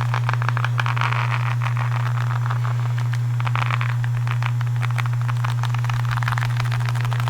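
Fast crackling and scratching handling sounds close to the microphone, coming in waves that swell and fade, over a loud steady low hum of background noise.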